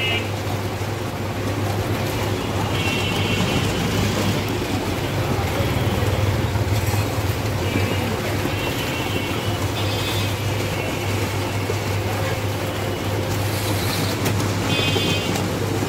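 Roller ice cream machine running, its motor-driven drum giving a steady low hum under a dense noise bed. Short high-pitched squeaky sounds come every couple of seconds.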